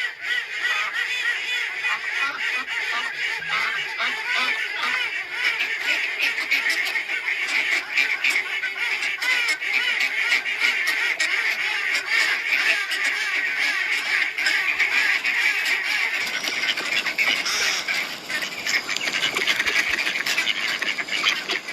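A flock of domestic ducks and geese calling all at once: a dense, continuous chorus of overlapping quacks and honks.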